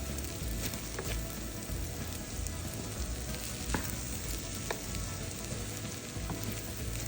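Food sizzling and frying in a hot pan, a steady crackling hiss, with a couple of sharp clicks about four and five seconds in.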